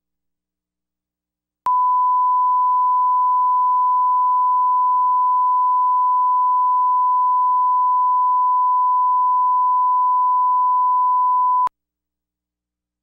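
Steady 1 kHz line-up test tone, the reference tone at the head of a broadcast tape for setting audio levels. It switches on with a click about two seconds in, holds one unchanging pitch for about ten seconds, and cuts off with a click.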